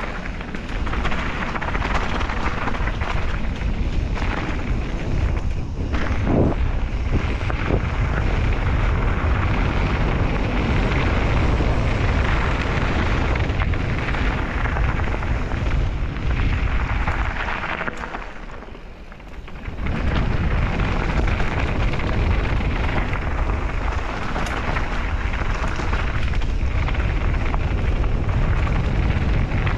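Wind buffeting the microphone of a GoPro action camera during a fast mountain-bike descent, mixed with the tyres rolling over gravel. There are a couple of short knocks about six and seven and a half seconds in. The noise dies down for about two seconds a little past the middle, then comes back.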